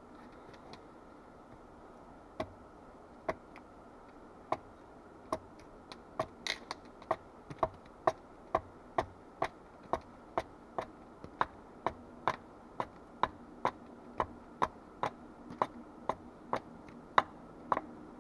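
A series of short, sharp knocks: a few spaced ones at first, then a steady rhythm of about two a second from about six seconds in.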